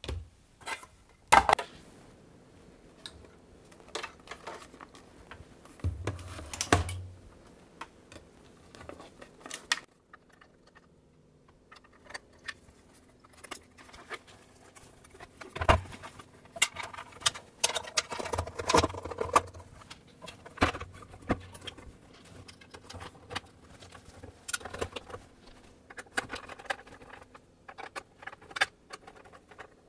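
Scattered small clicks, taps and knocks from hands handling a Husqvarna Viking Designer SE sewing machine and its parts on a workbench: a circuit board set down, the machine's plastic and metal shifted, and its baseplate screws worked with a screwdriver near the end. A few sharper knocks stand out, about a second and a half in and again about halfway through.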